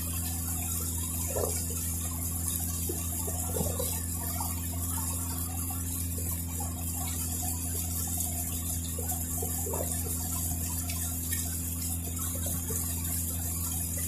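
Small ferry boat's engine running with a steady low drone, with water rushing and splashing along the hull as the boat crosses.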